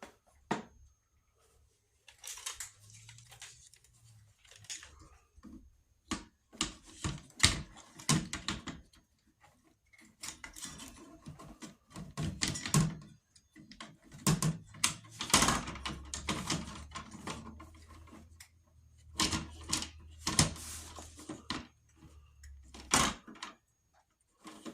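Irregular clicks, knocks and rattles of parts being handled and fitted by hand onto a Craftsman 8-1/4-inch table saw while assembling it, coming in short clusters with brief pauses.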